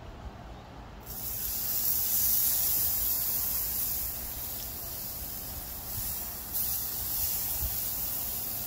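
Raw chicken breasts sizzling on the hot grate of a charcoal grill; a steady hiss starts suddenly about a second in as the meat goes down.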